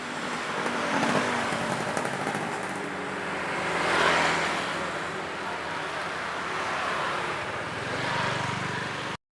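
Road traffic noise, with passing vehicles swelling up, the loudest about four seconds in, then cutting off suddenly near the end.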